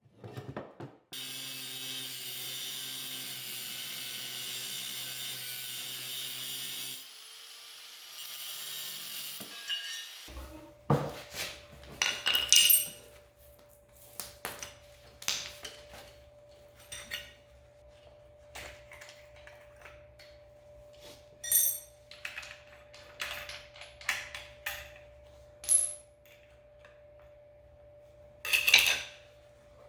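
Steel pieces and tools being handled on a workbench: scattered sharp metallic clanks and clinks over a steady electrical hum, after a few seconds of steady hissing at the start.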